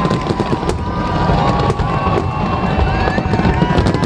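Large harbour fireworks display: a continuous low rumble of booming shells with many sharp crackling reports, and thin whistling tones sliding up and down through it.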